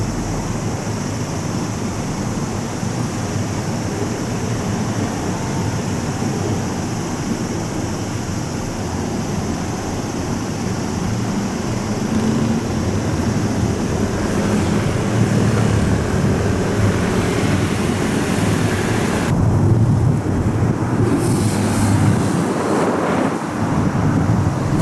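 Steady low rumble of passing vehicles mixed with wind buffeting the microphone, growing louder about halfway through.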